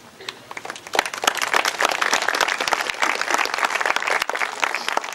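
Audience applauding, beginning faintly and swelling to full clapping about a second in.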